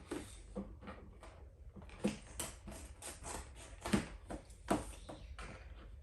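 Hands handling and opening a cardboard trading-card collection box and its packaging: irregular small clicks, taps and rustles, with a few louder knocks about two, four and five seconds in.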